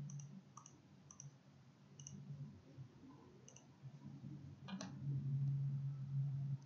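Computer mouse clicks: several light clicks in the first few seconds and a sharper one near the middle. Beneath them runs a low hum that grows louder for the last second and a half.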